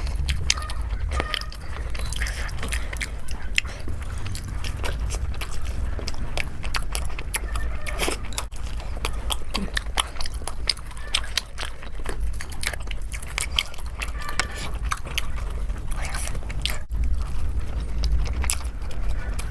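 Close-miked eating: a person biting and chewing food, a busy run of small wet clicks and smacks over a steady low hum.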